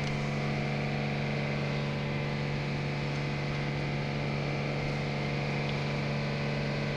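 Steady low machine hum in a workshop, holding one pitch throughout, with a faint tick or two.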